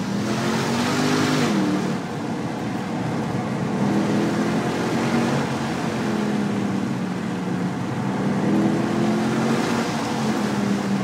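Mercedes-Benz C63's engine heard from inside the cabin, its note climbing under throttle and dropping away as the driver lifts or shifts, about three times, with steady road and tyre noise underneath. The road noise is loudest in the first two seconds.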